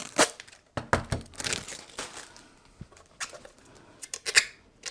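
Protective plastic film being peeled off the glossy case of a devolo GigaGate WLAN bridge: irregular crackling and tearing, with the loudest crackles about four seconds in.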